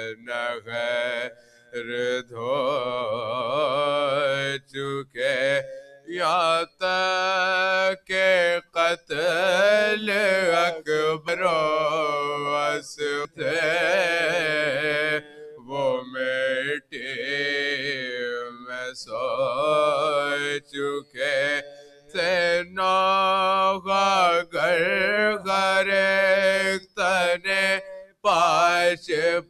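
Men chanting an Urdu marsiya, a mourning elegy, without instruments: long held notes with wavering pitch, broken by short breath pauses.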